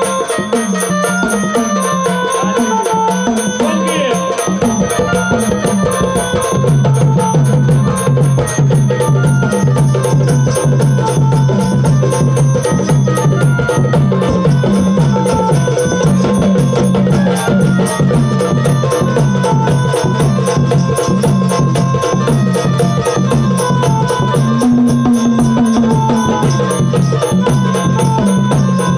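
Gondhal folk devotional music: drums and a dense run of small percussive strokes under a stepping instrumental melody. A low sustained note comes in about seven seconds in and the music grows slightly louder.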